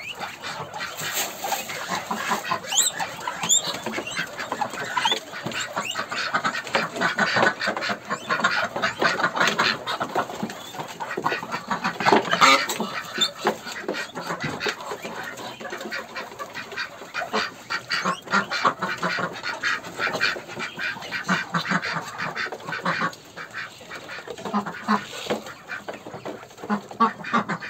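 A pen of domestic Pekin and Muscovy ducks quacking and calling, a dense, continuous racket of short calls. High, short chirps from smaller birds are mixed in.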